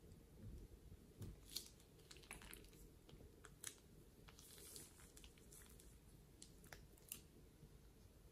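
Faint crinkling and crackling of a clear plastic piping bag being squeezed and handled over a bowl of slime, with scattered small clicks.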